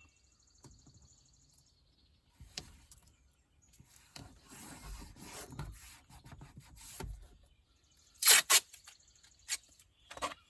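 Masking tape being worked onto a plastic door panel: a stretch of rubbing as the tape is pressed down, then a short, loud rip as a length of 2-inch masking tape is pulled off the roll, followed by a few small clicks.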